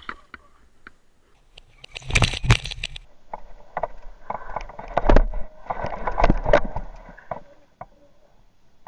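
Mountain bike rattling and knocking over a rough dirt trail in irregular bursts, the loudest about two seconds in and a longer run of knocks in the middle.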